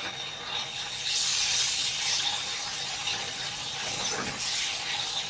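Batter sizzling on a hot gas-fired griddle as it is ladled and spread. The hissing swells about a second in and eases off toward the end.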